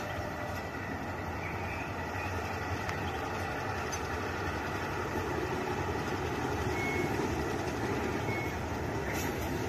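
TGM8KM diesel shunting locomotive's engine running as it moves slowly up the track, a steady low rumble that grows a little louder in the middle.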